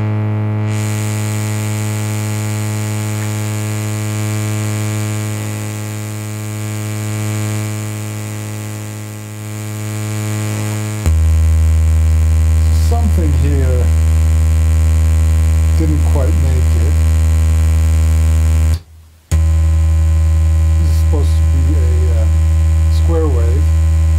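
Doepfer MS-404 analog synthesizer module holding a steady low note rich in overtones, its filter sounding funny and in need of adjustment or repair. About eleven seconds in it changes to a lower, louder note, and it cuts out for a moment near nineteen seconds.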